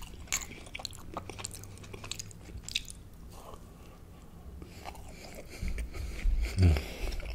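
Close-miked biting and chewing of a crab cornbread fritter: soft crunches and wet mouth clicks in the first few seconds, quieter chewing after them, and a short low voiced sound that falls in pitch near the end.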